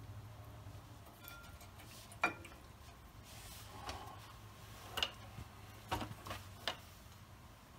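Several light, separate metallic clicks and taps from new brake pads being seated in the rear caliper bracket's clips and from brake parts being handled, the sharpest about two seconds in and a cluster near the end. A faint steady low hum runs underneath.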